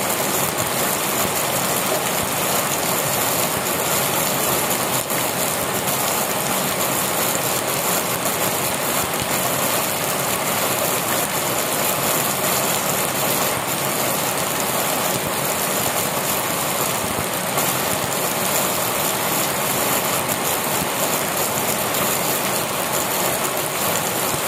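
Heavy rain pouring steadily onto a concrete yard and dense leaves: an even, unbroken hiss with no let-up.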